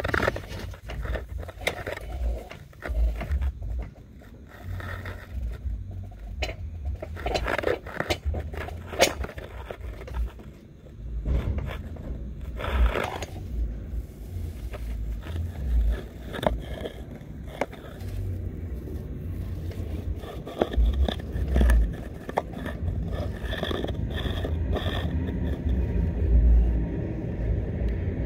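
Chimney inspection camera scraping and knocking against a sooty flue wall as it is pushed along: irregular scrapes and clicks over low thuds.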